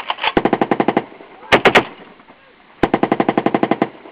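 Machine gun firing in three bursts: a burst of about a second, a short burst of three or four rounds, then after a pause another burst of about a second, at roughly ten to twelve rounds a second.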